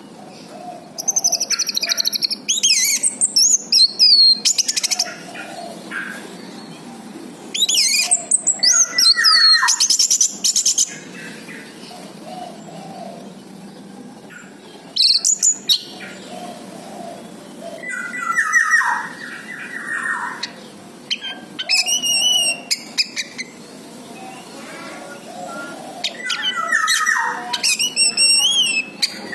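Orange-headed thrush singing: bursts of rapid, varied whistled phrases every few seconds, several of them ending in a falling note.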